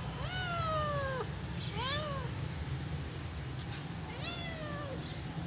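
Kitten meowing three times: a long call about a second long that rises and then slides down in pitch, a short one about two seconds in, and a fainter one near the end.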